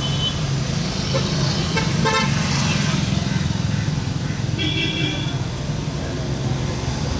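A road vehicle's engine running steadily with a low rumble. Short horn toots sound about two seconds in and again about five seconds in.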